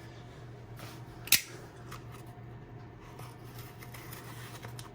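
Handling of a cardboard shipping package at the start of an unboxing: faint rustling with one sharp click about a second and a half in, over a steady low hum.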